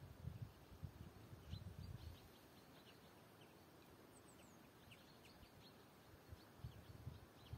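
Faint chirping of small birds: many short, quick high notes scattered throughout, with soft low rumbles in the first two seconds.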